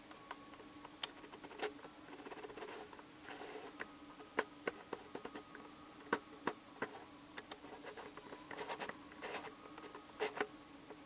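A camera lens focus ring being turned in small movements, making a faint, irregular chp-chp-chp of sharp clicks, some in quick clusters, over a steady low hum.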